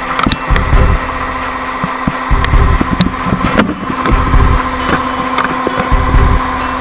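Yanmar YH6115 combine's diesel engine and unloading auger running steadily while unhulled rice pours from the spout into a bulk bag with a hissing rush. Low rumbles come back about every second and a half to two seconds, with a few light ticks.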